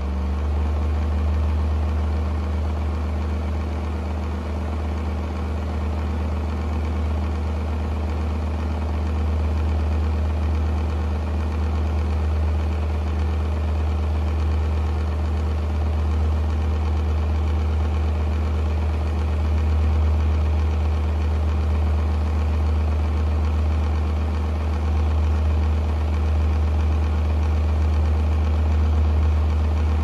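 Motor of an early-1980s Artic Breeze OF12 12-inch table fan running at a constant speed: a deep, steady hum with a rush of air from the blades.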